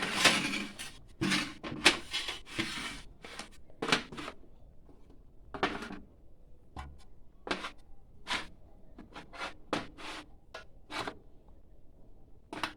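Kitchen handling sounds: a scattered series of short clicks, taps and knocks from a baking mould and utensils being handled, at irregular intervals and denser in the first few seconds.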